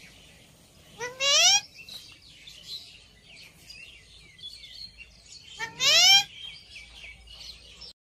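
Rose-ringed parakeets calling: two loud calls, one about a second in and one near six seconds, each a quick run of rising notes. Fainter chirps of other birds come between them.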